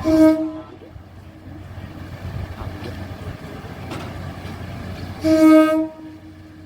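KIHA 183 diesel railcar's horn sounding two short blasts, one at the start and one about five seconds later, over a steady low rumble of the running train.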